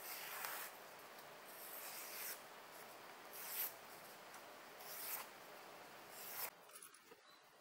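Freshly sharpened steel kitchen knife slicing through sheets of paper held in the hand, five strokes, each a short papery hiss. The cuts stop about six and a half seconds in.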